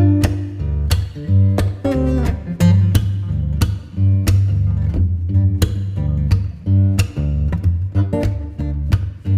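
Background music: plucked acoustic guitar with a strong bass line and a steady beat.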